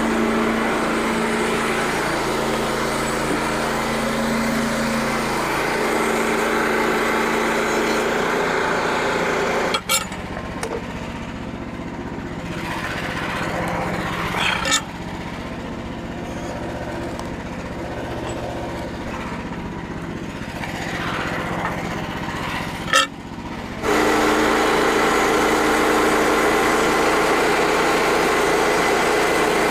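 Small engine of a portable band sawmill running steadily. It drops lower for about fourteen seconds in the middle, with a few sharp clicks, then comes back up to full level.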